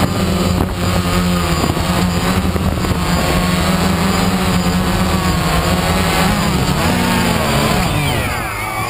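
A DJI Phantom 1 quadcopter's four brushless motors and propellers whirring loudly close to the on-board camera, a steady hum with a slight wobble in pitch. Near the end the pitch shifts and the sound eases a little as the hovering drone is caught by hand.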